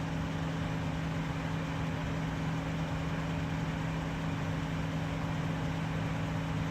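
2018 Toyota Camry idling, heard from outside the car: a steady low hum over even background noise, with no change throughout.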